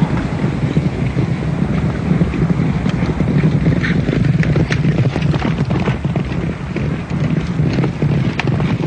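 Loud wind and surf sound effect, a dense rushing noise heaviest in the low range, with scattered sharp knocks in the second half. It cuts off abruptly near the end.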